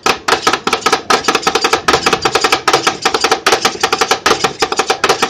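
Two metal spatulas chopping rapidly on the steel cold plate of a Thai rolled-ice-cream (I-Tim Pad) stand, a fast rhythmic metallic clacking of about eight to ten strikes a second with a ringing tone. This is the stage where the ice cream base is chopped and mixed as it freezes on the plate.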